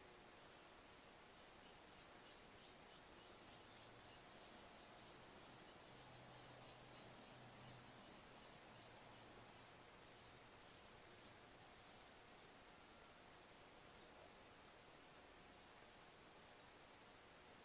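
Faint, rapid high-pitched chirping, dense for about the first ten seconds, then thinning to scattered single chirps.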